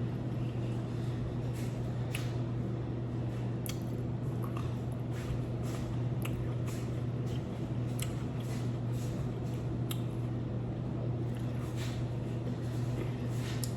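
Close-miked eating: a person chewing food with wet mouth clicks and smacks, many short and irregular, over a steady low electrical hum.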